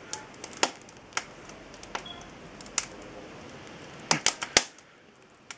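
Wood fire of beech kindling crackling: irregular sharp pops and snaps, with a denser, louder cluster of cracks a little after four seconds.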